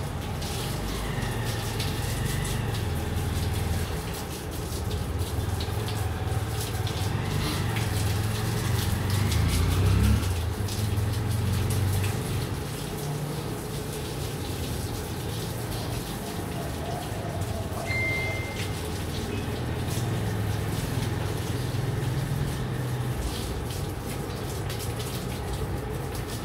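Water from a garden hose spraying onto a mountain bike as it is rinsed, a steady hiss and splatter.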